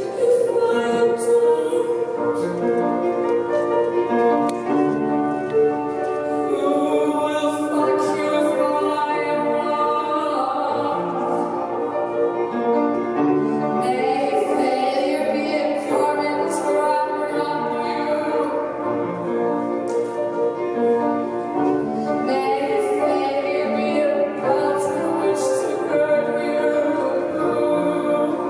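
Woman singing in a sustained, operatic style over held piano chords in a live performance.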